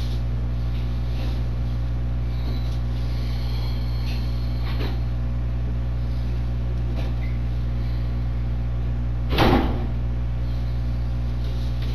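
Steady low electrical hum on the interview-room recording, with a few faint knocks and one louder thump about nine and a half seconds in.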